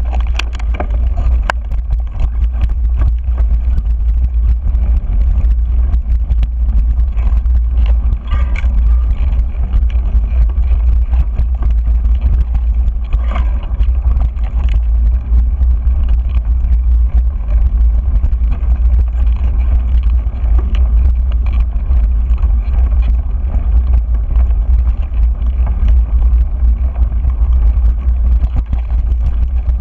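Mountain bike rolling down a dirt singletrack: heavy wind rumble on the microphone over the tyre noise, with scattered clicks and rattles from the bike over bumps.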